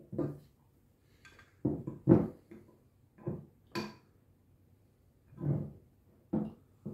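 Stainless steel threaded pipe fittings being handled and set down on a wooden workbench: a string of short knocks and clinks, one about four seconds in with a brief metallic ring.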